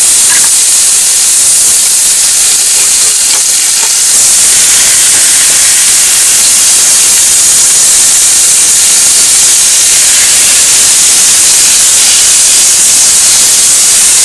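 Potato wedges and chicken sizzling in a frying pan over a gas flame as they are stir-fried, a loud, steady hiss that grows a little louder about four seconds in.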